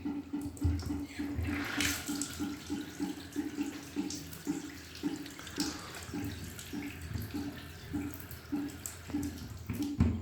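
Water running in a bathroom sink, with a pulsing that repeats about four times a second at first and slows to about two a second. A brighter rush of water comes about two seconds in.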